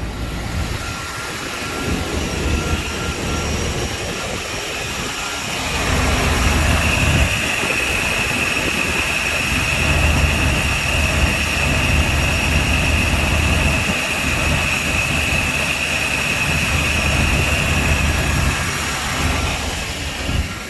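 Engine idling steadily at about 900 rpm with its distributor advanced. The owner doubts it runs well at low idle and wonders about a vacuum leak. From about six seconds in, a steady high-pitched whine joins the idle and stops shortly before the end.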